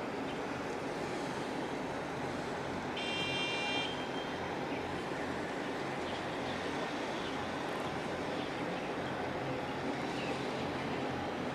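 Steady low mechanical rumble of engines and traffic. About three seconds in, a short high whistle-like tone sounds for under a second.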